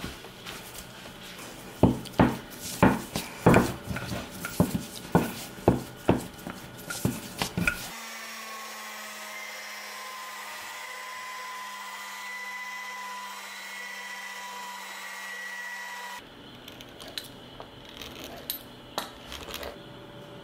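Pasta dough kneaded by hand on a wooden board, with heavy thumps about twice a second. Then an electric pasta machine's motor runs with a steady hum for about eight seconds as a sheet of dough passes through the rollers, and stops abruptly. After that come light taps as filling is spooned onto pasta squares.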